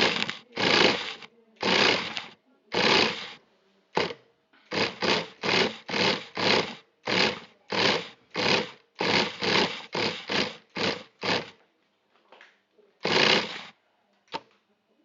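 Radio-controlled car's motor and wheels driven in short bursts of throttle, about twenty quick pulses, speeding up to about two a second in the middle, with a pause and one last burst near the end followed by a sharp click.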